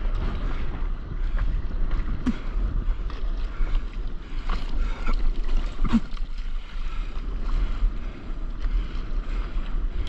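Wind buffeting the action camera's microphone over choppy sea water sloshing around a stand-up paddleboard, with short splashes about two seconds in and again around six seconds.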